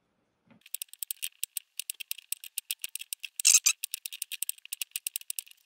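Kitchen knife slicing raw King Edward potatoes into chips on a bamboo chopping board: quick crisp clicks, several a second, starting about a second in, with a louder crunch near the middle.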